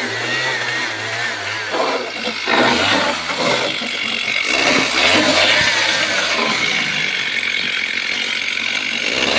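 Stihl two-stroke chainsaw running while cutting jackfruit wood. Its engine note holds steady at first, then falls and rises repeatedly from about two seconds in as the saw is throttled and loaded in the cut.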